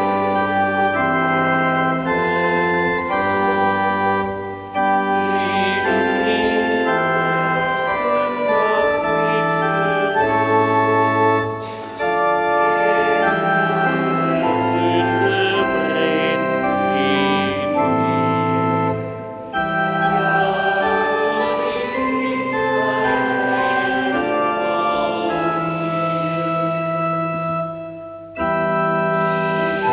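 Organ playing slow held chords in phrases, with a brief break about every seven seconds.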